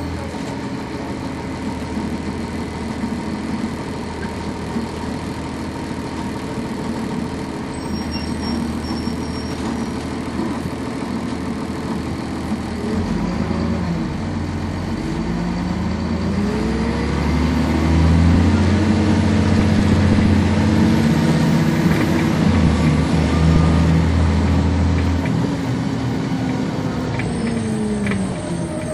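Cummins ISC six-cylinder diesel of a NovaBus RTS transit bus heard from on board, running at a steady pitch, then revving up from about halfway through. It gets louder, and its pitch rises and falls in waves as the bus pulls through the gears of its ZF automatic. The pitch drops near the end.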